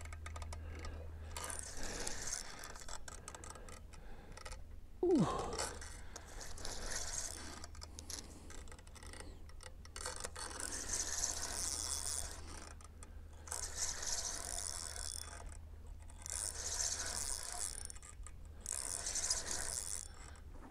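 Spinning reel being cranked to bring in a hooked fish, its gears whirring in spurts of a second or two with short pauses between. A short sound falling in pitch about five seconds in.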